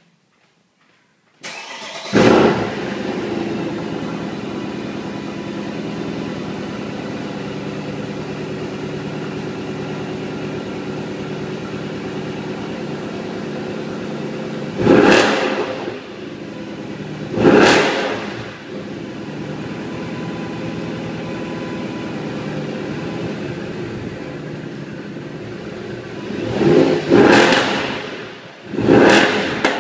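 Mercedes-Benz SL63 AMG V8 starting up, with a brief flare of revs as it catches, then settling into a steady idle. It is blipped in short, sharp revs: twice about halfway through and two or three times near the end.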